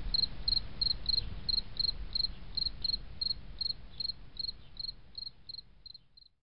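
Cricket chirping in a steady rhythm, about three short high chirps a second, over a low rumble; it fades and stops about six seconds in.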